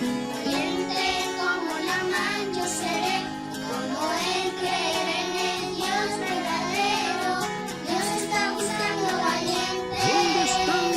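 Children singing a Christian children's worship song over instrumental backing music.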